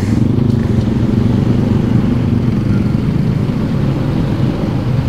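Motorcycle engine running steadily at low speed in slow city traffic, with the surrounding motorbikes and cars adding to it.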